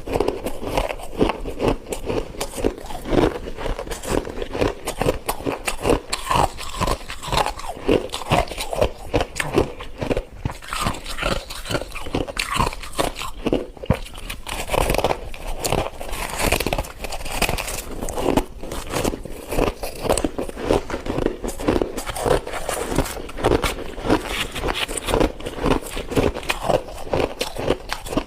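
A person biting and chewing white frost, a dense run of crisp crunches and crackles that keeps going without a break.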